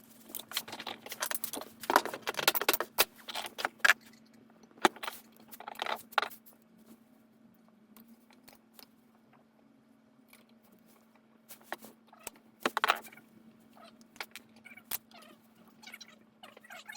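Irregular clicking and rattling of small metal parts and tools being handled, in scattered bursts, over a faint steady hum.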